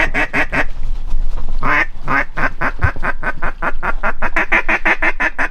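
Rapid string of loud duck quacks: a few at the start, one more a second later, then a fast, even run of about six a second from about two seconds in.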